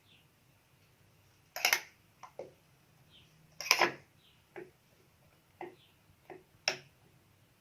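Scattered light clicks and taps of kitchen utensils against serving bowls, about eight in all at irregular spacing, the loudest about two and four seconds in.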